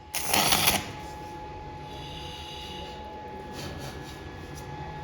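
Hawk Vision HV-DL202 electric door lock operating: a short mechanical burst lasting about half a second near the start, then a faint steady hum.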